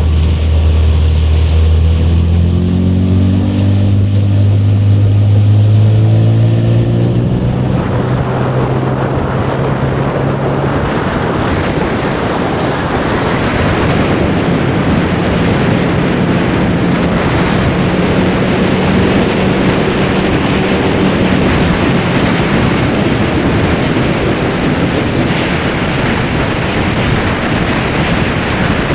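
Suzuki 9.9 hp outboard motor revving up over a few seconds as the boat picks up speed. It then runs at high speed, mostly buried under wind rushing over the microphone and water noise.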